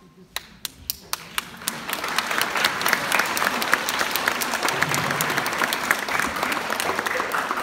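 Audience applauding: a few scattered claps at first, building into steady applause within about two seconds.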